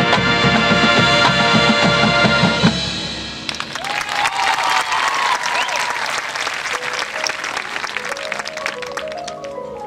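Marching band's brass and drums playing a loud full-band passage that cuts off about two and a half seconds in. Crowd applause and cheering follow, and near the end the front ensemble's marimbas start quieter rising runs.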